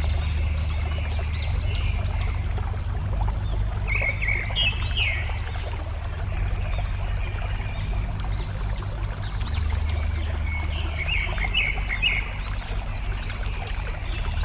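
Small birds chirping in repeated clusters of short, quick rising notes over steadily running, babbling water with a deep steady rumble underneath.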